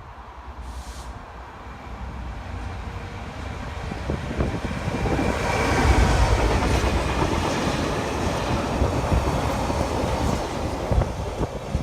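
A train passing through the station, its noise building to a peak about six seconds in and staying loud, with wheel knocks over the rail joints.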